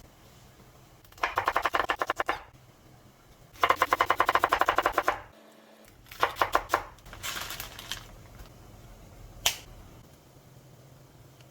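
Kitchen knife chopping quickly on a cutting board, in several bursts of about eight strokes a second, then one single knock near the end.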